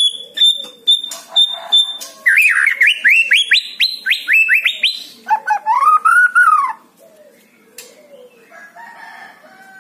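White-rumped shama (murai batu) singing varied whistled song. It opens with a run of repeated high notes, then a fast series of rising sweeps, then a lower arching whistle about five seconds in. Only softer, quieter notes follow near the end.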